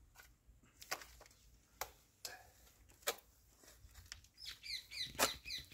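Faint scrapes and taps of a steel trowel loading cement mortar onto the back of a ceramic wall tile. From about four and a half seconds in, a bird chirps in a quick run of short falling notes.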